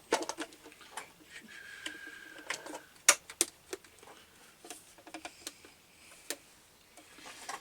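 Scattered clicks and light knocks of hands handling a sewing machine and plugging in its foot pedal, with a faint high steady whine for about a second and a half near the start.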